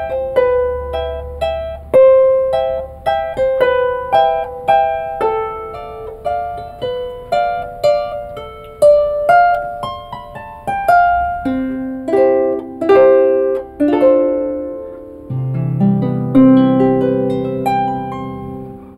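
Paraguayan harp played solo: a melody of separate plucked notes, each ringing and fading. Lower bass notes come in about two-thirds of the way through.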